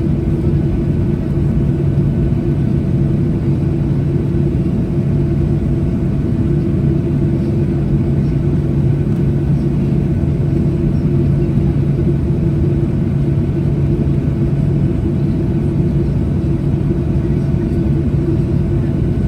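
Boeing 737-800's CFM56-7B jet engines running at taxi power, heard inside the cabin beside the engine: a steady hum made of a few fixed tones over a low rumble.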